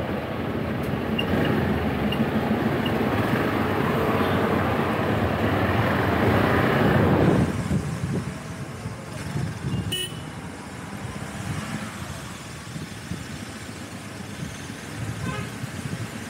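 Slow street traffic heard from a motorcycle: a steady rush of engine and road noise that drops suddenly about seven seconds in. Short vehicle horn toots sound about ten seconds in and again near the end.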